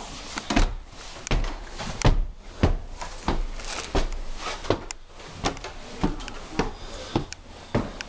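Irregular knocks, clicks and thumps of someone moving about a cabin room: footsteps on the floor and handling noises, with a louder thump about two seconds in.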